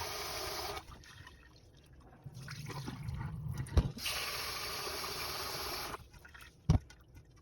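Kitchen tap running into a pot to wash sticky rice, shutting off about a second in and running again for about two seconds midway through. In between there are quieter water sounds, with a sharp knock just before the tap comes back on and another near the end.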